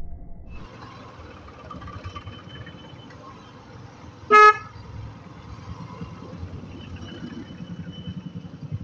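One short, loud horn honk about halfway through, over the steady low rumble of a motorcycle riding in road traffic.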